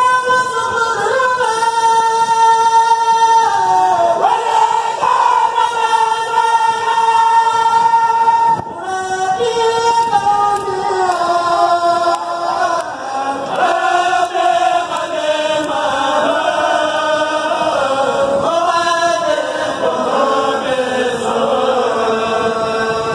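A Mouride kourel, a group of men chanting religious verses (khassaid) in unison without instruments, with long held notes that slide from pitch to pitch.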